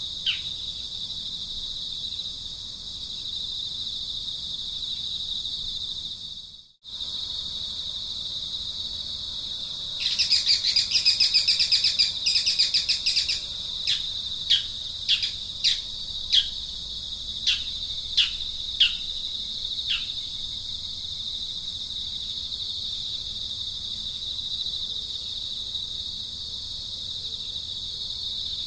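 Steady high insect drone of outdoor ambience, which cuts out for a moment about seven seconds in. Partway through, a bird gives a rapid chattering burst, then a string of about nine short calls that each fall in pitch.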